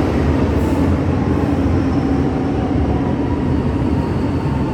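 A rail car running: a steady rumble with a low hum and a fainter, higher whine held through it.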